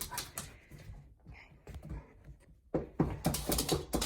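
A run of quick, irregular light taps and clicks that starts suddenly almost three seconds in, after a near-quiet pause.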